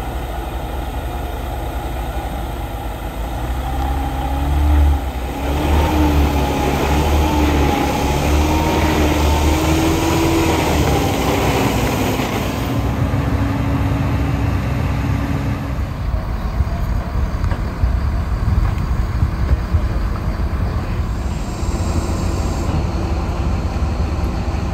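Heavy semi-trailer truck's diesel engine running as the truck drives in and manoeuvres, its engine note rising and falling. About two-thirds of the way through, it gives way to a steadier diesel engine running.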